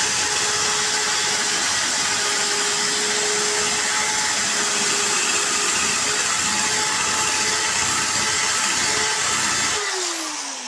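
Electric drill fitted with a diamond-coated core (tube) bit grinding into glass, running at a steady whine. Near the end the trigger is released and the motor winds down with a falling whine.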